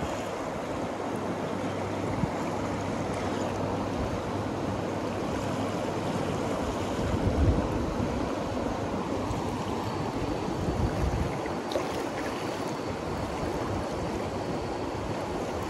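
The Ganges rushing past close by: a steady wash of fast-flowing river water. A few low buffets of wind on the microphone come around the middle.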